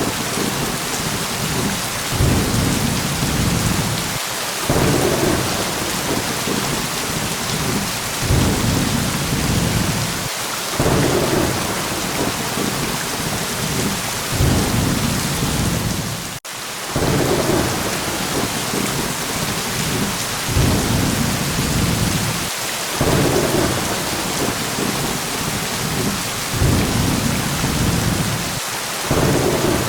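Steady heavy rain hissing, with low rolls of thunder swelling and fading every few seconds. The sound cuts out for a moment about halfway through.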